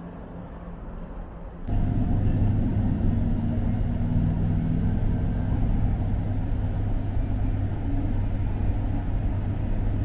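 A moving electric train heard from inside the carriage: a steady, loud low rumble that cuts in abruptly about two seconds in, after a quieter outdoor background.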